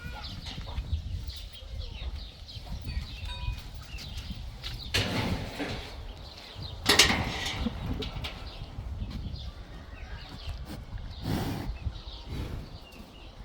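Farmyard sounds: three short animal calls from livestock, the loudest about seven seconds in, over a steady low rumble.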